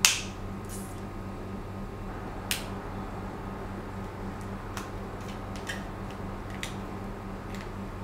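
Sharp clicks and light taps of hand tools and small plastic parts being handled on a desk: one loud click at the start, another about two and a half seconds in, then a few fainter ticks, over a steady low hum.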